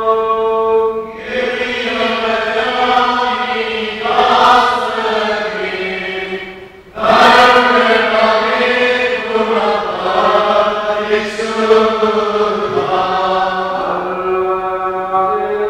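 Liturgical chanting in long, held notes, with a short break about seven seconds in.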